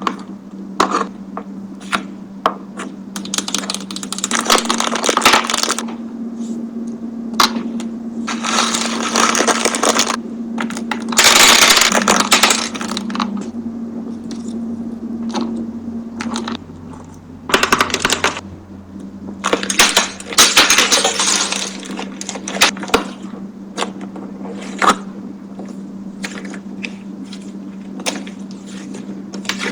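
Small hard objects being handled: many sharp clicks and taps, with a few stretches of rustling a second or two long, over a steady low hum.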